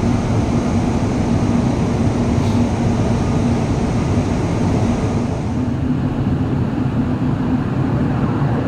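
Cabin running noise of a Guangzhou Metro Line 18 train at about 160 km/h in a tunnel: a steady rumble with a constant low hum. About five seconds in, it gives way to the duller rumble of a train approaching through the tunnel.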